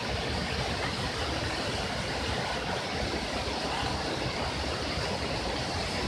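Waterfall rushing steadily as it plunges into a pool: an even, unbroken wash of water noise.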